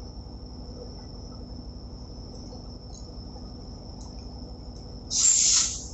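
Compressed air hissing in one short burst about five seconds in, from a hand-held air blow gun on a hose, as air is put to a marine main engine starting air valve for its operational check. A steady high-pitched whine and low hum run underneath.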